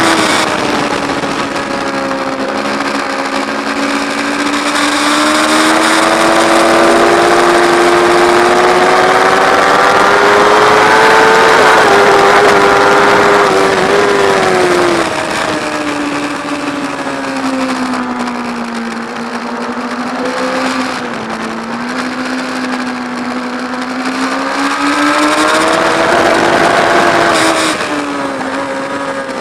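A sports motorcycle's engine heard onboard at high revs on a race track, with a steady rush of wind. The engine pitch climbs slowly through the gears along a long straight, falls about halfway through as the rider shuts off for a braking zone, then rises again and falls once more near the end.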